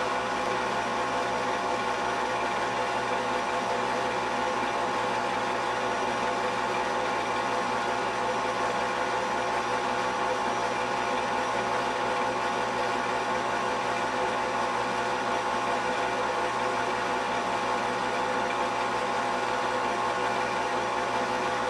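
Steady mechanical hum and whir with several held tones, unchanging throughout.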